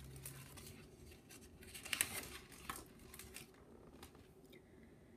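Faint rustling and soft clicks of a picture book's paper pages being handled and turned, the sharpest rustle about two seconds in.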